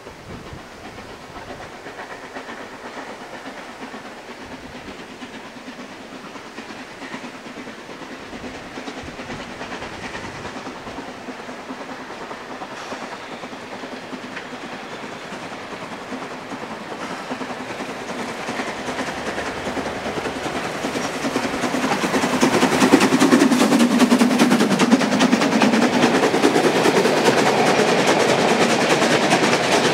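Narrow-gauge steam locomotive, a class 99.23–24 2-10-2 tank engine, working a passenger train past at close range. Its exhaust beats and the running of the coaches grow steadily louder as it approaches, and become loud from about two-thirds of the way in as it passes close by.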